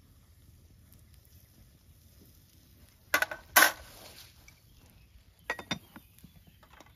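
Glass pot lid clinking against metal skewers and a cooking pot: two loud clinks about three seconds in, then two lighter clinks near the end as the lid is set on the pot.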